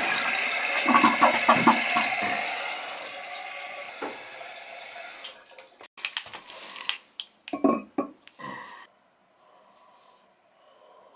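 A newly installed one-piece toilet being test-flushed: water rushing and gurgling out of the tank and bowl, then the tank refilling through the fill valve, fading over the first few seconds. After that come several knocks and clunks as the porcelain tank lid is set back in place.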